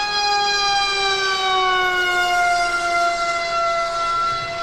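A ZOHD Alpha Strike FPV wing's electric motor and propeller whining in flight: a high, steady tone with many overtones. Its pitch slides down over a second or two, then holds.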